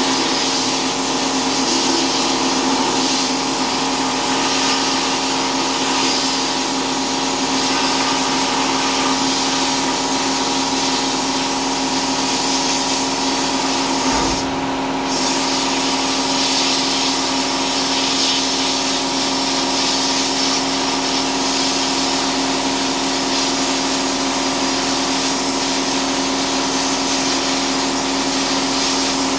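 Sandblasting cabinet in use: a steady hiss of compressed air and abrasive from the blast nozzle onto a rusty steel G-clamp screw, over a steady machine hum. The hiss breaks off briefly about halfway through, then resumes.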